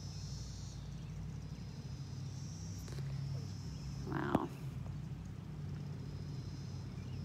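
Evening insects trilling outdoors: a steady high-pitched drone that comes and goes in stretches, over a low steady hum. A brief louder sound breaks in about four seconds in.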